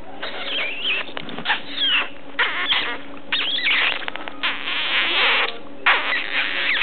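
Bursts of scratchy rubbing noise close to the microphone, with short high squeaks among them, from a puppy playing right at the camera.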